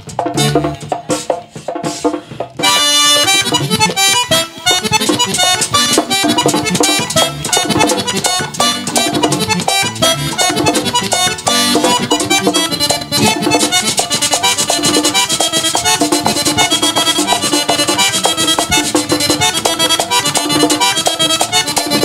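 Live merengue típico band playing: a button accordion leads fast runs over tambora drum, güira scraping and electric bass. A sparser opening of drum strokes gives way to the full band with the accordion about three seconds in.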